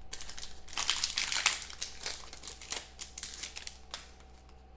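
Foil wrapper of a trading-card pack crinkling and rustling in the hands. The crackling is busiest in the first two seconds and thins out near the end.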